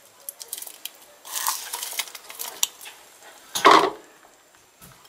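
Dried shrimp being scraped out of a plastic bowl into a pan of broth: light clicks and scrapes of utensil and bowl, with one louder knock about three and a half seconds in.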